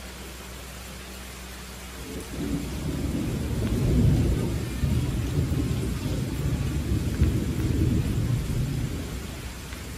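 Steady night rain falling, with a low roll of thunder that builds about two seconds in, is loudest around four seconds, and fades out near the end.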